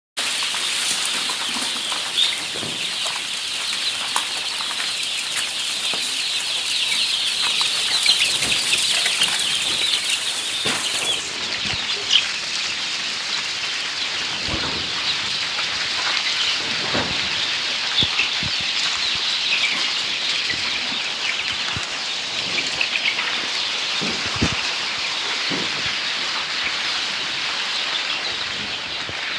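A flock of three-week-old chicks peeping continuously, many high calls overlapping into a dense chatter.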